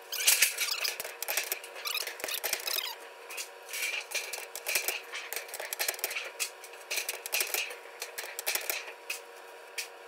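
Galvanized sheet-metal duct halves rattling, scraping and clanking while being worked in a hand-operated cleat bender that folds the drive tabs. The metal sounds come in many sharp clicks and scrapes and die down near the end.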